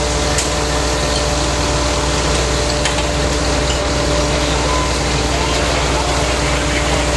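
Fire engine's motor running steadily: a constant drone with a few held tones over a broad hiss.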